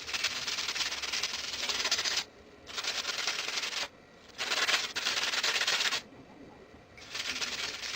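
80-grit sandpaper rubbed hard over the metal case of a cheap Zippo-style lighter, in four scratchy spells of one to two seconds each with short pauses between, scuffing up the surface so paint will stick.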